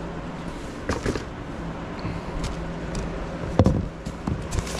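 Small cardboard boxes handled and shifted in a clear plastic tote: scattered knocks and rustles, with one sharper knock about three and a half seconds in, over a steady low hum.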